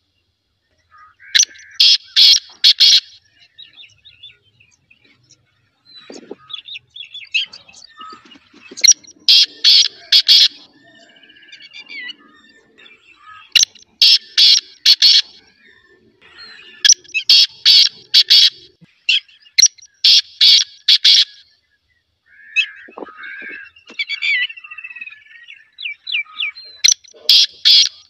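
Black francolin (black partridge) calling: six loud bursts of four or five short, harsh, clipped notes, a few seconds apart. Fainter chirps from other small birds fill the gaps.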